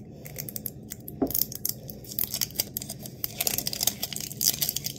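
Plastic shrink-wrap seal being torn and peeled off a plastic toy capsule, with irregular crinkling and crackling.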